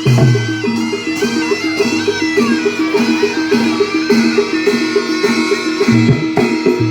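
Javanese barongan ensemble music: drumming under a fast, evenly repeating pattern of tuned percussion, with a wavering high melody that sounds like a reed wind instrument.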